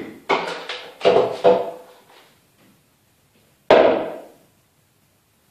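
Kitchen things set down on a wooden tabletop: one sharp knock about three and a half seconds in that dies away quickly.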